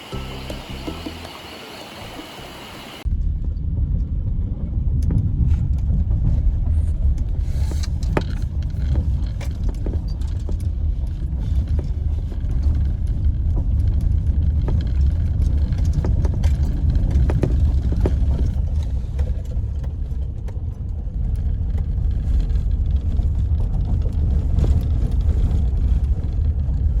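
Background music for about three seconds, then the steady low rumble of a car's engine and road noise heard from inside the cabin.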